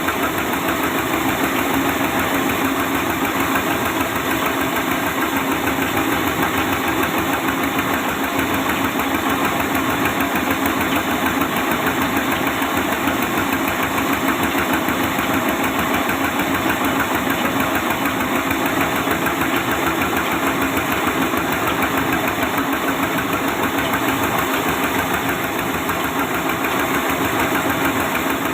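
Sawmill saw machine running with a steady, even mechanical drone and hum.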